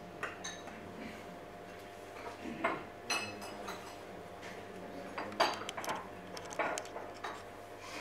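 Tableware being handled: scattered light clinks and knocks, with one ringing clink about three seconds in, over a faint steady hum.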